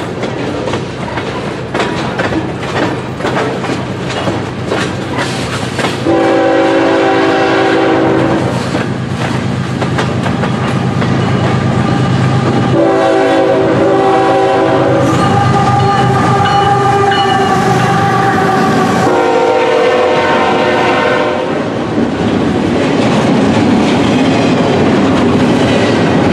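Freight cars rolling past with wheels clacking on the rails, and a CN freight locomotive's air horn sounding three times over the rumble: about six seconds in, again at about thirteen seconds in a blast of some six seconds, and once more about nineteen seconds in.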